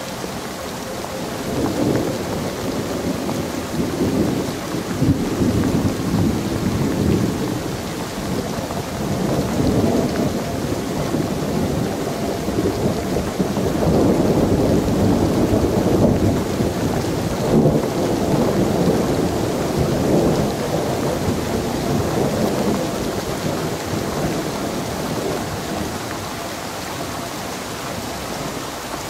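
Steady rain with rolling thunder: low rumbles swell and fade every few seconds over the hiss of the rain.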